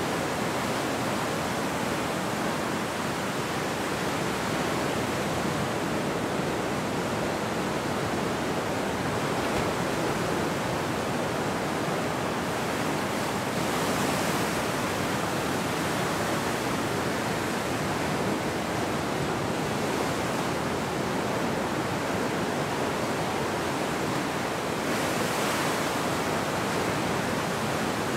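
Ocean surf: waves breaking and washing in, a continuous rush of water that swells louder about halfway through and again near the end as larger waves break.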